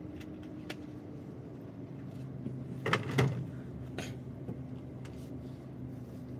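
Idling traffic heard from inside a car cabin: a steady low engine hum, with a couple of sharp knocks about three seconds in and a lighter one a second later.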